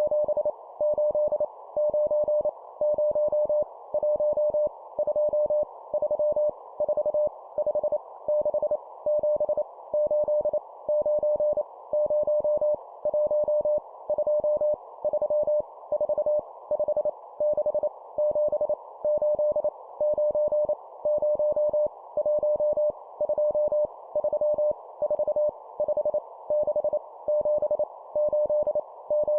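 Morse code (CW) tone, a single steady beep keyed on and off in dots and dashes at 25 words per minute, sending numbers, over a faint band of hiss.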